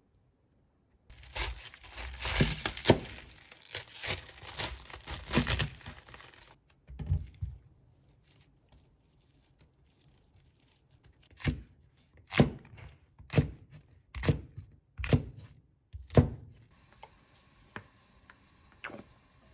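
Several seconds of tearing and crinkling while food is being prepared, then about six sharp knocks, roughly one a second.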